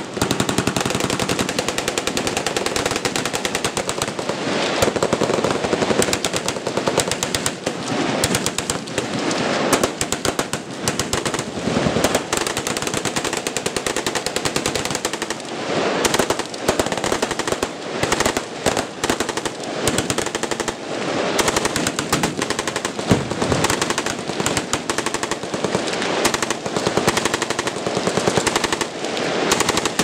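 Many machine guns firing at once along a firing line, their bursts overlapping into continuous gunfire with no pause.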